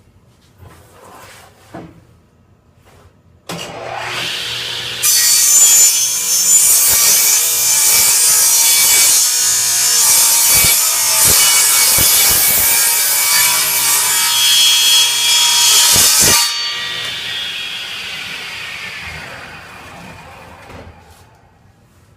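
Table saw switched on about three and a half seconds in, then a board's edge fed through the spinning blade for about eleven seconds. This is a light final jointing pass that takes the whole length of the edge straight. After the cut the sound falls away slowly as the saw winds down.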